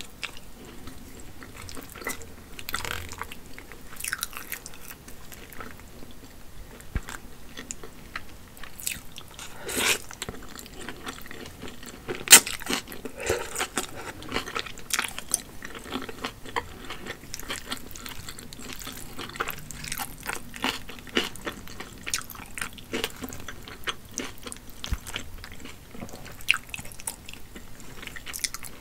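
Close-miked chewing and biting of a person eating a boiled egg and wide, slippery hand-pulled noodles, with many irregular wet clicks and smacks. A sharper click comes about twelve seconds in.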